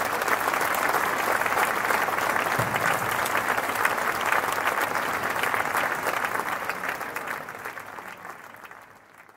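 Audience applauding at the end of an orchestral piece, the clapping dying away over the last three seconds.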